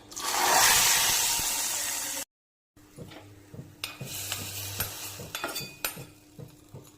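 Loud sizzling in a hot cooking pan, starting suddenly and fading over about two seconds. After a cut, a spoon stirring and clinking irregularly against the pot.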